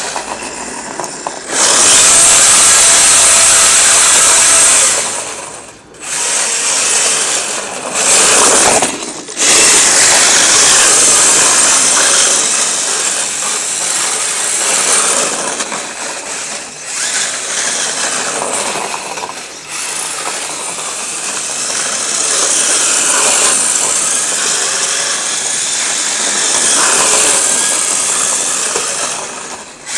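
Electric RC drift car's Hobbywing EZRun 5.5T brushless motor and gear drivetrain whirring at high pitch in throttle bursts. The whir rises and falls with the throttle and drops out briefly about six and nine seconds in.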